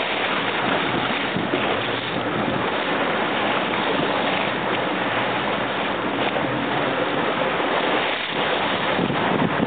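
Steady wind noise on the microphone over choppy water splashing and rushing on open water.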